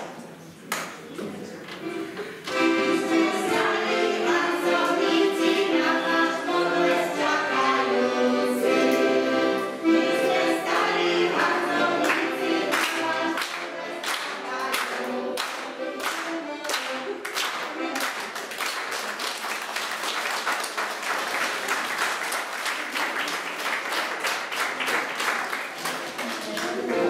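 Children singing together to an accordion. In the second half, hand clapping takes over.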